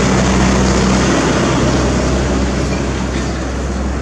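An engine running steadily: a loud, even noise over a low hum.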